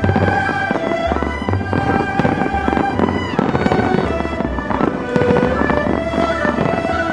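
Aerial fireworks bursting in rapid succession, many sharp bangs and crackles, over loud music with held notes and a pulsing bass line.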